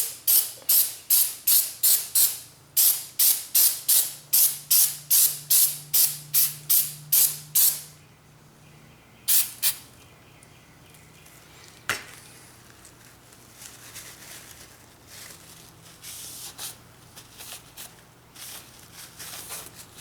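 Sandpaper being rubbed back and forth over the bare metal of a pistol slide to rough it up for paint: a quick run of about twenty scratchy strokes, roughly two and a half a second, then one more stroke and a click, followed by light handling.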